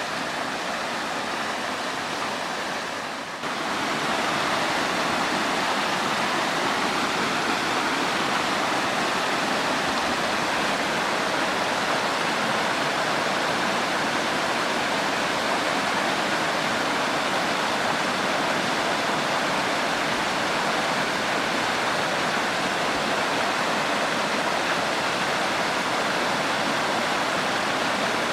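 Kurotaki waterfall: water falling steadily onto rock with an even, continuous rush. About three seconds in the sound dips briefly and then comes back slightly louder.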